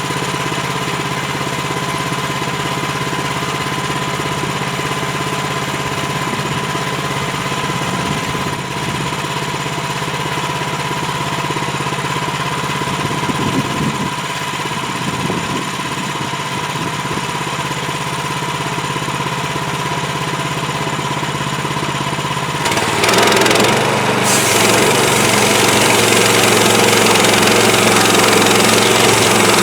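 Portable bandsaw sawmill's gas engine running steadily with a hum near 1 kHz. About three-quarters of the way through, a louder rushing noise comes in and the engine note drops, as the mill takes on load.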